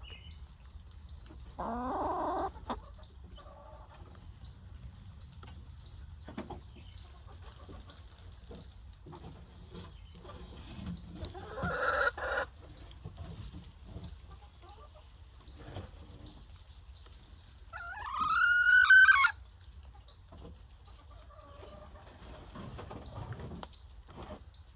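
Chickens clucking now and then, with one loud drawn-out call rising in pitch about three-quarters of the way through. A faint high tick repeats about twice a second throughout.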